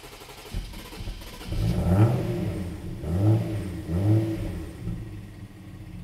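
The N55 turbocharged inline-six of a 2013 BMW 335i catches after a hard start with the gas pedal held down. It rises and falls in pitch in three surges, then settles toward idle. The hard starting and stalling are what the technician suspects comes from a faulty 5-volt reference at the fuel rail pressure sensor, with misfires on several cylinders.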